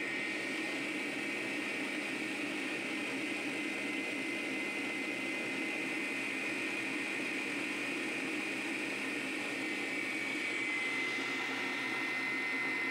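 Electric stand mixer running steadily, its wire whisk beating egg yolks and sugar in the bowl: an even motor whir with a thin, steady high whine.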